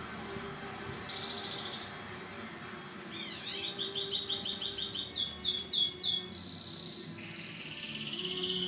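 A songbird singing: long high trills, and in the middle a run of fast repeated chirps, each sweeping down in pitch, about five a second.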